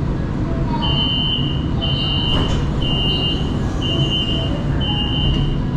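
Metro door-closing warning: five steady high beeps, each just under a second long, about one a second, over the low steady rumble of the train standing at the platform.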